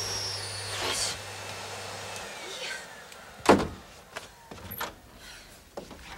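Vacuum cleaner motor switched off: its steady hum and whine fall away over the first two seconds or so. Then comes a loud thump about three and a half seconds in, followed by a few light clicks of a door handle and latch as a door is opened.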